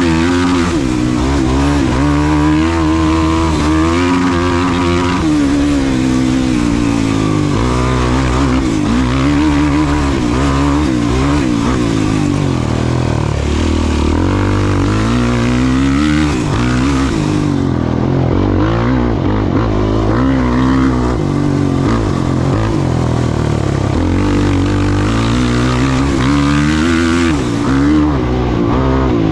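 Off-road race vehicle's engine running hard, revving up and down over and over as the throttle is opened and closed, with no let-up.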